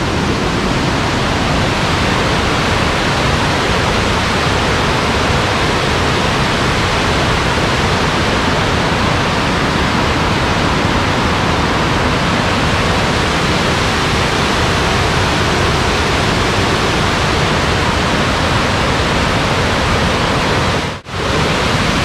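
Waterfall on a river: a loud, steady rush of white water pouring over wide rock ledges. It cuts out for a moment near the end.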